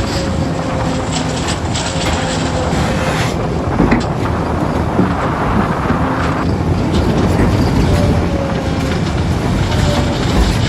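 JCB 3DX backhoe loader's diesel engine running steadily under load, with a faint whine that slides up and down in pitch and a couple of short knocks about four and five seconds in.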